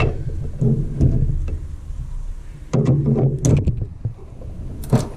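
Hand tool scraping caked-on deposits off a motorcycle fuel tank part in uneven, squeaky strokes, with a sharp click near the end.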